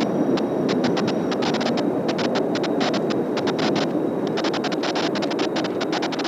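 Strong gusty wind on the microphone: a steady rushing roar with rapid, irregular crackling over it.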